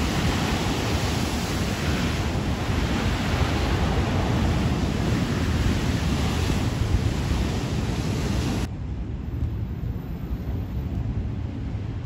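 Wind buffeting the microphone over a steady rushing hiss. About nine seconds in, the hiss cuts off abruptly, leaving a lower, uneven wind rumble.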